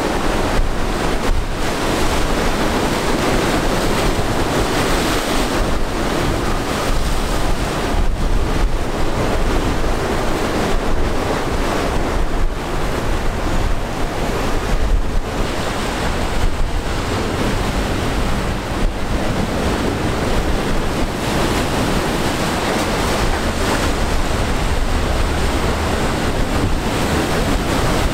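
Rough, choppy sea water splashing and churning, with strong wind buffeting the microphone in a fluctuating low rumble.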